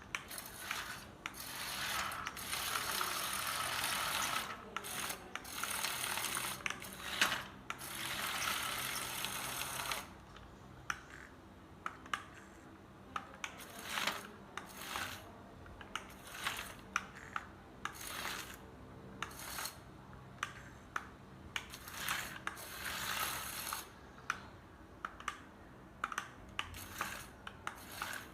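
Small geared mechanism whirring and clicking, in two long spells about a second in and near 22 seconds, with scattered sharp clicks between.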